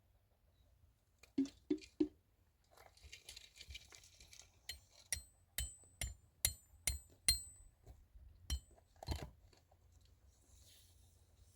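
Dishes and metal utensils being handled: three dull knocks, a short rustle, then a quick series of sharp ringing clinks, about two a second, and two last knocks.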